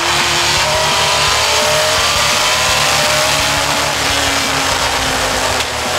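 Onboard sound of a US Legend race car at racing speed: its Yamaha motorcycle engine running hard, pitch climbing over the first few seconds and then settling lower, under heavy wind rush on the microphone.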